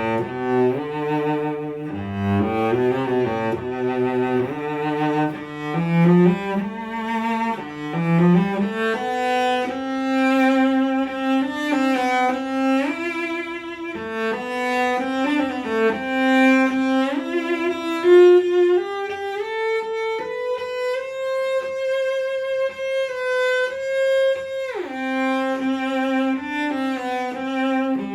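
Bieg cello built on the Guarneri pattern, bowed with vibrato. It plays a melody in the low register, climbs to long held higher notes, then slides quickly down about three seconds before the end.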